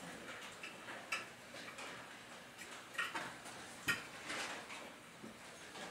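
Scattered light metal clinks and knocks as a wheel is taken off and swapped on a cart's axle, with a sharper knock about four seconds in.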